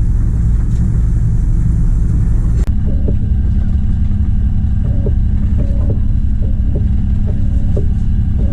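Fishing boat's engine running with a steady heavy low rumble. The sound cuts abruptly a little under a third of the way in, and after that a steady hum is joined by several short, repeated higher-pitched tones.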